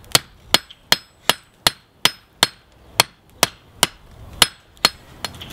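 Hand hammer striking a red-hot steel railroad spike on a block anvil: about a dozen sharp, ringing blows in a steady rhythm of roughly two and a half a second, stopping shortly before the end. The blows bend the spike's hot end down over the anvil's edge.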